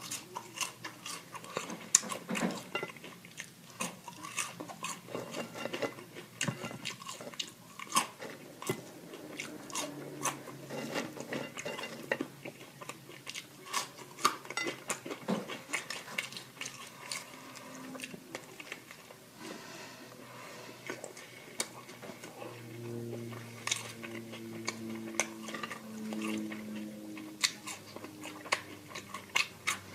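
Close-up chewing and biting of food, with irregular wet mouth clicks and soft crunches. A few short low hums join in during the last third.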